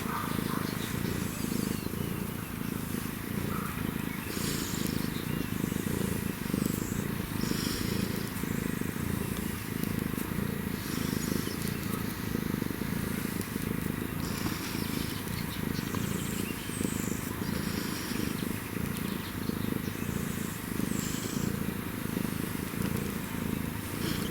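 African wildcat purring steadily: a continuous low, pulsing rumble.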